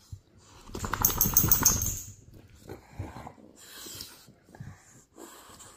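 A bulldog making a loud, harsh vocal burst about a second in that lasts about a second, as it scuffles with a meerkat at close range. Softer short breathing noises follow.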